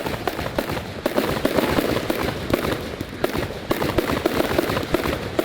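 Fireworks going off in a rapid, continuous barrage: many overlapping bangs and crackles with no gap.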